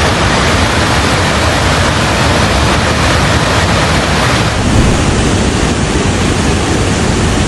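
Floodwater of a river in spate rushing, a loud, steady roar of water with a slight change in tone about four and a half seconds in.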